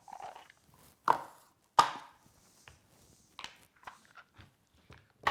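Knocks and clicks of the ride-on toy's wheels being taken out and put down on a hard surface: two loud knocks about a second and nearly two seconds in, then several lighter clicks, with a faint rustle early on.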